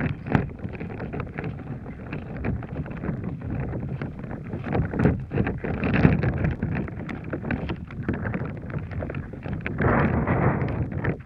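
Water sloshing and churning in a bag around a waterproof camera as the bag is swung and thrown, picked up by the camera's own microphone, with irregular knocks and rustles of handling and two louder swells, about halfway and near the end.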